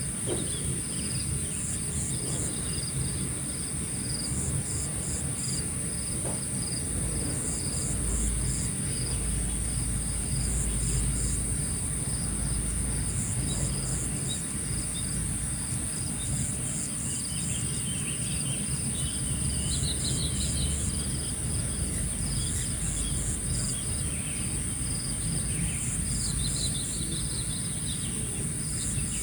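Outdoor morning ambience: a steady high-pitched insect drone with crickets, and short groups of chirps repeating about every three seconds. Occasional bird chirps sound over a low background rumble.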